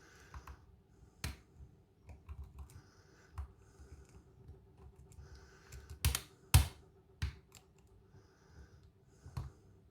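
Lock pick and tension wrench single-pin picking a kik cylinder fitted with ammo-style security pins: scattered sharp metallic clicks with faint scraping of the pick between them, the loudest clicks coming in a quick cluster a little past the middle.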